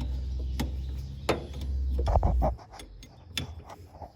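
Open-end wrench clicking and clinking against a hydraulic hose's JIC flare fitting as it is tightened, several separate metal clicks. A low rumble runs underneath and stops a little past halfway.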